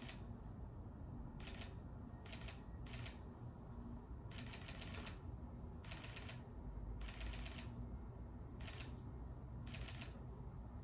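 Camera shutter firing in short rapid bursts of several clicks each, about nine bursts with brief pauses between them.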